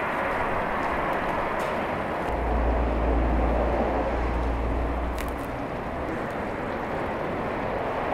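Open wood fire burning under large steaming cooking pots: a steady rushing noise with a few faint crackles. A deeper rumble swells from about two seconds in and fades about three seconds later.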